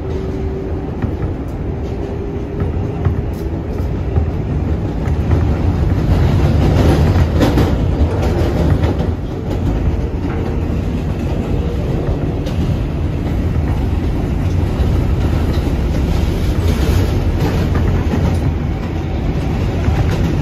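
R188 subway train running between stations, heard from inside the car. A steady low rumble carries scattered clacks of the wheels over the rail, and it grows louder about six seconds in.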